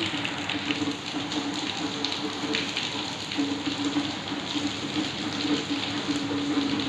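Heavy rain falling steadily on a tiled courtyard, a dense patter of many small drops.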